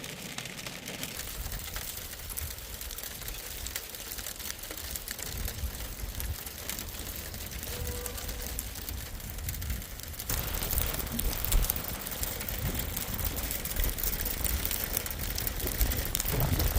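Rain falling and pattering, with a low rumble underneath; it gets louder about ten seconds in.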